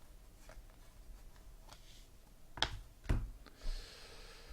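Trading cards being handled: a few soft clicks and taps about two and a half to three seconds in, then a brief sliding rustle.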